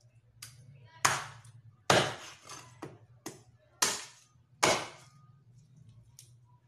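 Meat cleaver chopping through raw meat and bone on a wooden chopping board: a run of sharp chops at uneven intervals, four of them loud, over a faint steady low hum.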